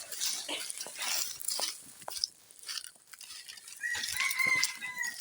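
A rooster crowing once, a single held call about four seconds in, with light rustling and clicks before it.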